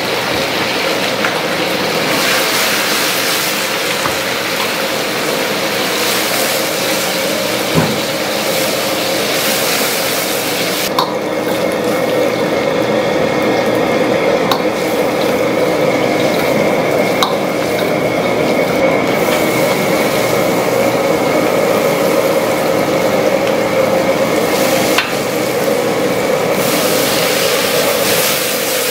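Diced meat frying and sizzling in oil in a wok over a high gas flame, a continuous loud hiss, with a few sharp clinks of the metal ladle against the wok.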